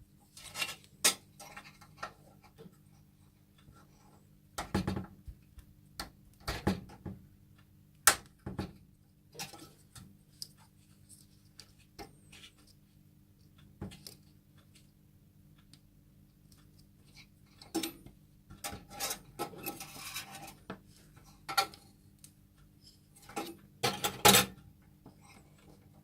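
Irregular clinks, clicks and knocks of small metal parts and tools being handled, with a short stretch of scraping or rubbing about nineteen seconds in, over a faint steady hum.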